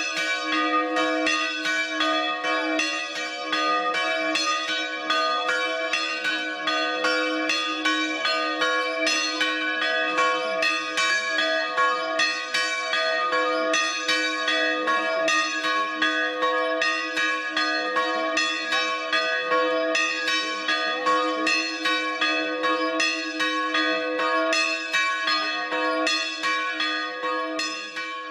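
Church bells ringing: a dense run of quick clanging strikes over the steady hum of lower bells, tailing off near the end.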